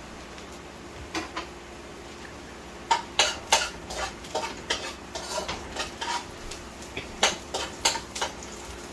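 Metal utensils clinking and knocking against pots and dishes: two light clicks about a second in, then from about three seconds in a busy run of irregular clinks with a short ring to them.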